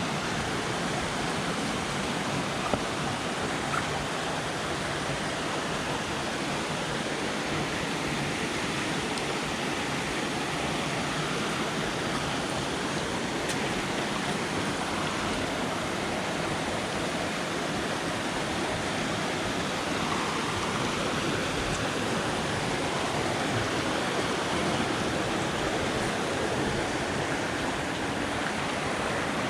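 Steady rush of river water tumbling over rocky cascades.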